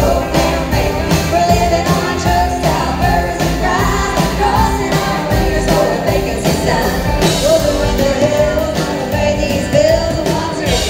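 Live country band playing with women singing lead and harmony vocals, drums keeping a steady beat.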